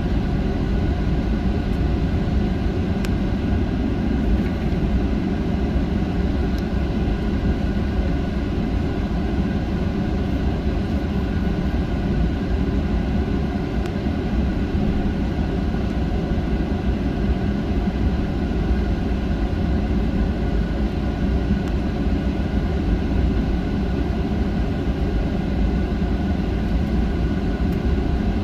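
Boeing 737-900 cabin noise heard from inside while taxiing, with its CFM56-7B engines at low taxi thrust and the cabin air running. It is a steady, even rumble with a few faint steady whining tones above it.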